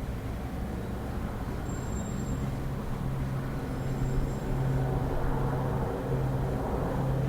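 Police helicopter hovering overhead: a steady low rotor drone that grows somewhat louder partway through.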